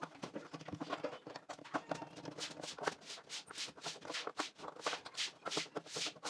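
Small precision screwdriver working screws out of a plastic Bluetooth speaker case, giving a run of light clicks and scrapes, about three a second.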